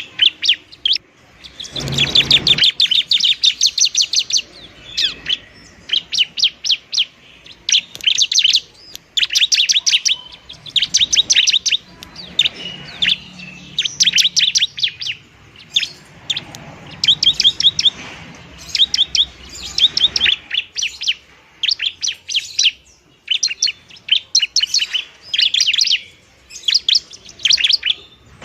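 Bar-winged prinia (ciblek) singing its fighting song: fast, high trilled phrases about a second long, repeated over and over with short pauses between them.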